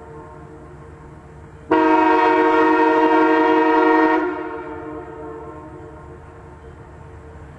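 Railroad air horn blown once for about two and a half seconds, starting sharply and cutting off, then echoing away, over a low steady rumble.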